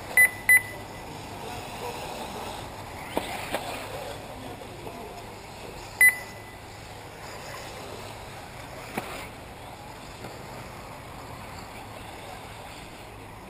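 Three short, high electronic beeps, two close together right at the start and one about six seconds in, typical of an RC race lap-counting system as cars cross the timing line. Underneath is a steady background noise from the track, with a few faint clicks.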